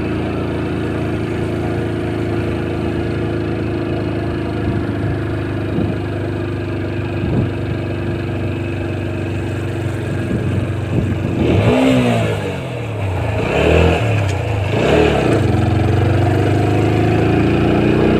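Motorcycle engine running steadily under way, then revving up and down about three times roughly two-thirds of the way in, its pitch rising and falling as the rider works the throttle.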